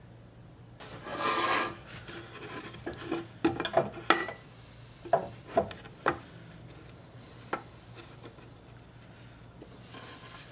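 A plywood board and a steel framing square handled against each other: a brief rubbing slide about a second in, then a scatter of light knocks and clicks as they are shifted and set down.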